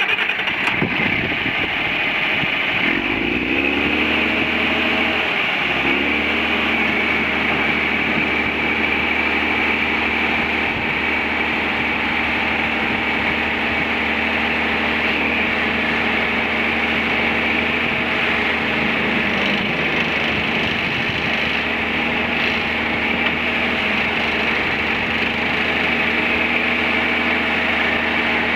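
John Deere 4520's six-cylinder turbocharged diesel running just after starting; about three seconds in its pitch rises as it speeds up, then it runs steadily.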